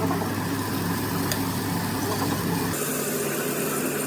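A steady low mechanical hum with a few held tones, no speech, its lowest part dropping away a little under three seconds in.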